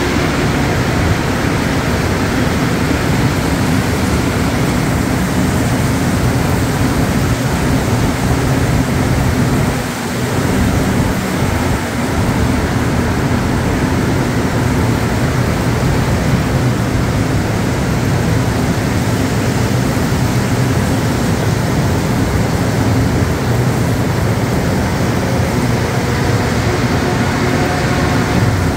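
An MR-73 rubber-tyred metro train rolls steadily past at the platform edge: a loud, continuous rumble of its tyres and running gear, dipping briefly about ten seconds in.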